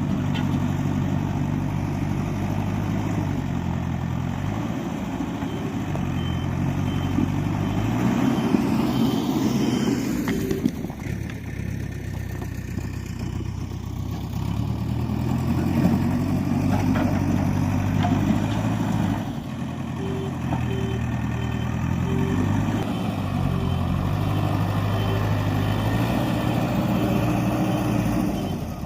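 Diesel engine of heavy earthmoving machinery running, its pitch rising and falling repeatedly as it works under load. Rows of short, evenly spaced beeps sound at times.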